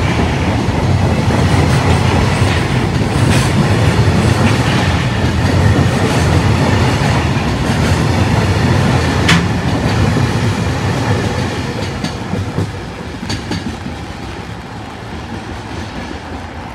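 Container wagons of a freight train rolling past, wheels clattering over the rails with a few sharp clanks. The rumble fades from about twelve seconds in as the last wagon goes by.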